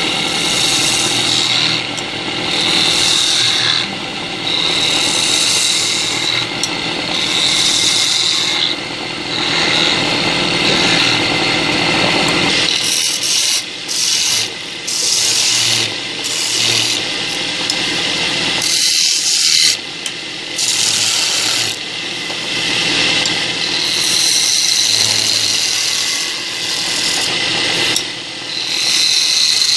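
Wood lathe turning a wooden spindle while a hand-held chisel cuts it: a loud rasping hiss of shavings that swells with each pass of the tool, over a steady high whine. There is a brief lull a little past the middle.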